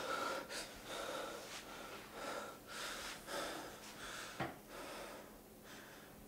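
A man breathing hard through his mouth, quick gasping breaths about two a second that slow and fade toward the end. A brief knock sounds about four and a half seconds in.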